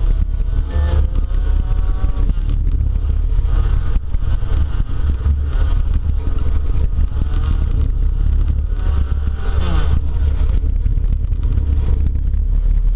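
A speedway derby car's engine heard from inside the cabin, its revs rising and falling as it is driven hard, over a heavy low rumble. The revs drop sharply just before ten seconds in.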